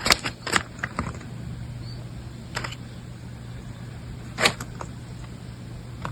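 A few short, sharp paper crinkles and clicks over a steady low hum, the loudest about four and a half seconds in: paper being handled, typical of a folded paper puppet being worked.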